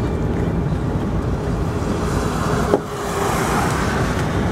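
Steady low rumble of wind buffeting the microphone at an open car window, with the car's own rumble under it. A single sharp click comes just before three seconds in, and a gust of hiss swells briefly around it.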